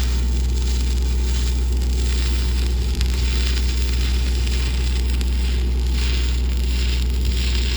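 Electric arc welding crackling steadily as a threadlet is welded onto the steel pump pipe, over a steady low hum from the welding equipment.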